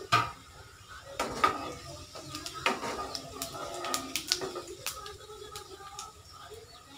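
Whole cumin seeds crackling and sizzling in hot oil in a kadai as they temper, with a wooden spatula stirring them against the pan. It opens with one sharp knock, and the crackles come thickest in the middle seconds.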